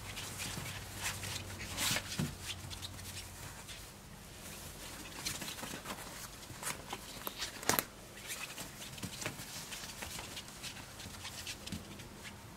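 Four-week-old Pembroke Welsh Corgi puppies scrabbling and padding about on a fabric sheet: a scatter of soft scratches, rustles and small clicks from paws and claws, with one sharper tap a little before eight seconds in.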